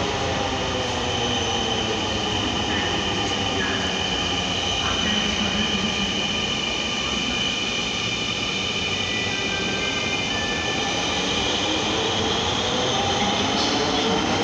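Metro train running, with a steady high whine over the rumble. A lower motor tone slides down in pitch at the start and climbs again near the end.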